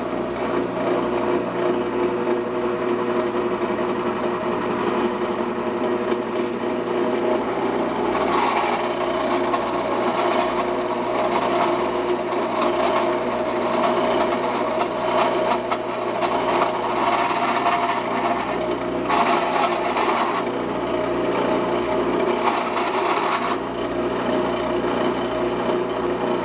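Drill press motor running steadily while its 5/16-inch bit bores deep holes into the end grain of a wooden log block. A constant hum lies under a rough cutting noise that swells and fades as the bit plunges in and is drawn back out.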